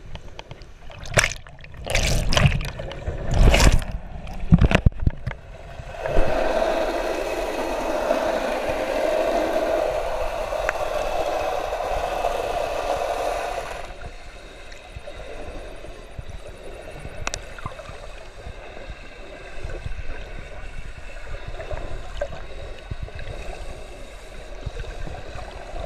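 Muffled water sound heard through an underwater camera housing: a run of sharp knocks and splashes in the first five seconds, then a steady hum for about eight seconds that stops abruptly, then quieter sloshing with scattered faint knocks and more splashing near the end.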